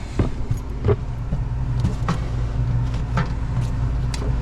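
Old Lennox HVAC system running with a steady low hum, with a few short clicks and taps from handling nearby.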